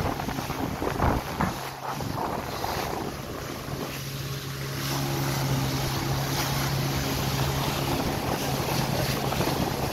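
Motorised wooden outrigger fishing boat under way: its motor hums steadily under wind buffeting the microphone and water rushing past the hull. A couple of thumps come about a second in.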